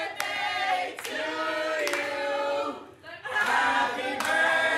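A group of voices singing together in long held notes, with a few hand claps.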